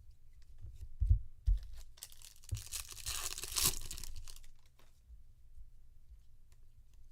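Two handling thumps about a second in, then a foil trading-card pack being torn open and crinkled for about two seconds.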